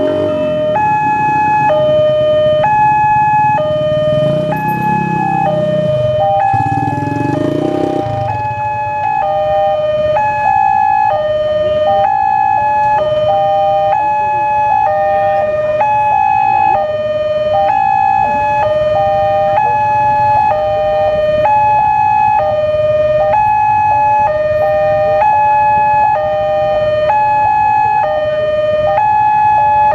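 Railway level-crossing warning alarm sounding its standard two-tone call, a higher and a lower tone alternating steadily about once a second each pair, which means a train is approaching and the barriers are down. A low rumble and hiss lie under it for the first eight seconds.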